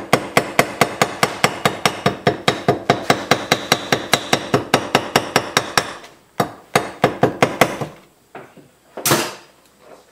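A small hammer tapping rapidly and evenly on gasket material laid over the metal flange of an air-compressor casting, about six taps a second: it is cutting a homemade gasket out along the flange's edge. Near six seconds in the run of taps stops, a few single taps follow, and a short noise comes about nine seconds in.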